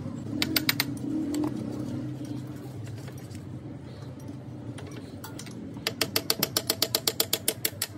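Ratchet wrench clicking as bolts inside a diesel engine's crankcase are turned: a few clicks about half a second in, then a fast, even run of about ten clicks a second near the end.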